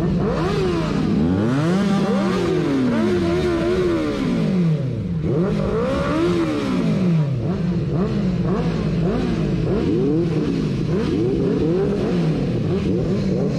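Benelli 600i's inline-four engine revved again and again while standing still, each throttle blip rising and falling in pitch about every second or two.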